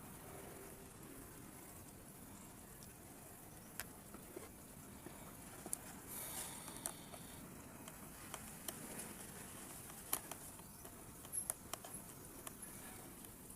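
Faint, scattered light clicks and taps from handling the plastic housing and screws of a mini battery chainsaw while it is being taken apart, with a brief soft rustle about halfway through.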